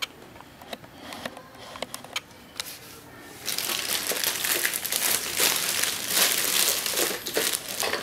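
Clear plastic packaging bag around a robot vacuum crinkling as hands handle it: a few faint rustles and clicks at first, then continuous, much louder crinkling from about three and a half seconds in.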